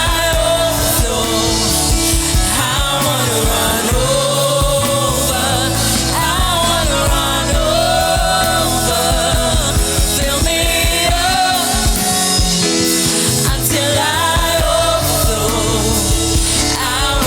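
Christian worship song: a singer holding long, wavering notes over a band with bass and drums.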